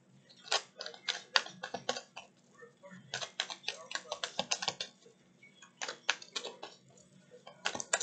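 A tarot deck shuffled by hand: quick runs of card clicks in several bursts with short pauses between them.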